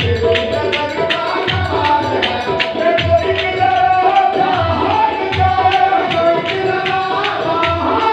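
Sufi devotional music in qawwali style: singing with sustained harmonium tones over a steady hand-drum beat, marked by sharp regular strikes about two to three a second.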